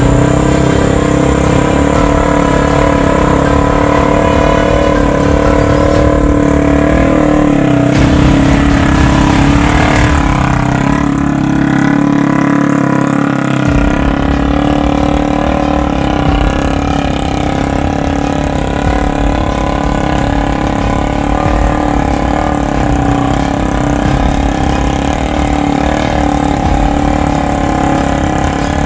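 Three-wheeled motorcycle's MX engine running steadily, with a brief change in engine pitch about ten seconds in.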